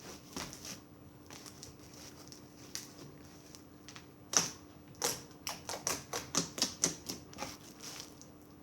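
Slime being squeezed and worked by hand, giving irregular sharp clicks and pops that come thick and fast in the second half.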